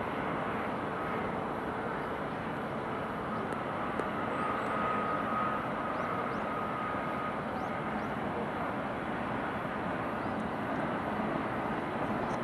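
Steady distant city din of traffic and rail noise heard from high above the town, with a faint high whine held for a few seconds in the middle.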